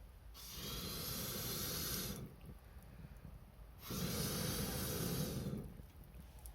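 Two long breathy blasts of air about a second and a half apart, each lasting under two seconds: air being blown onto the bonfire, breath-like and hissing.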